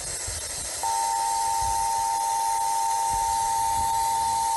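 Static hiss growing louder, then about a second in the Emergency Alert System attention signal starts: a steady two-tone alarm, two close pitches just under 1 kHz (853 and 960 Hz), held without a break.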